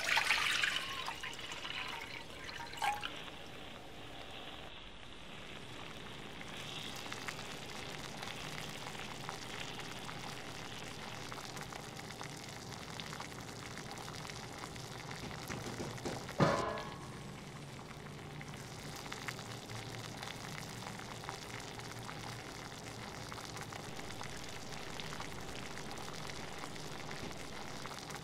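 Liquid poured into a hot cast-iron pot of browned chicken and onions, hissing loudly as it hits, then settling into a steady sizzling bubble. A single sharp knock comes about halfway through.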